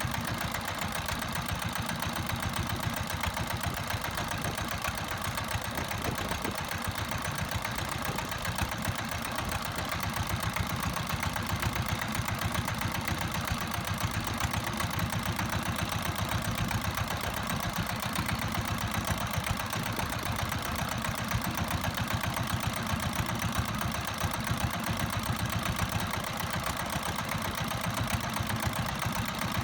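Fishing boat's engine running steadily at trolling speed, with an even, rapid firing beat.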